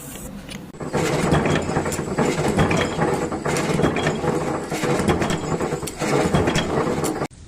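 Loud, dense mechanical clattering made of rapid clicks, starting about a second in and cutting off suddenly near the end.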